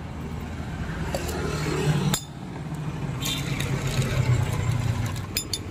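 A motor vehicle's engine hum swells, cuts off suddenly about two seconds in, then another builds and fades. A few glass clinks come near the end.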